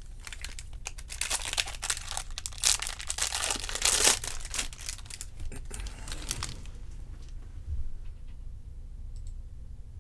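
Crinkling and tearing of foil trading-card pack wrappers as a pack is ripped open and the empty wrappers are handled, starting about a second in, loudest around four seconds in, and dying away after about six and a half seconds.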